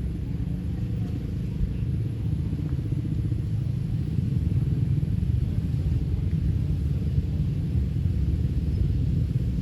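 Steady low rumbling noise with no distinct events, a little louder in the second half.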